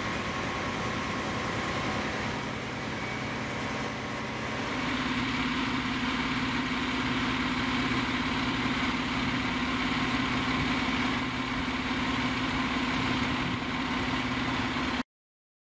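Fire engine idling steadily; it grows louder and a strong steady hum comes in about five seconds in. The sound cuts off abruptly just before the end.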